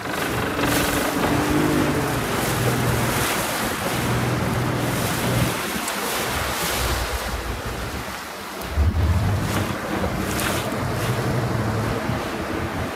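Wind buffeting the microphone and choppy waves rushing and splashing, heard from a small inflatable motorboat. A boat engine hums low underneath, coming and going.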